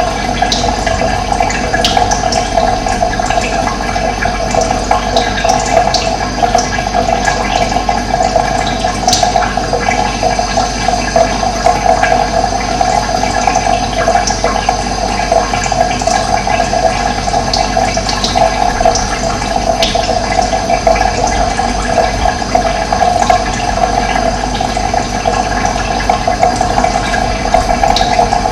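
Running water rushing steadily, with birds giving short high chirps now and then over it.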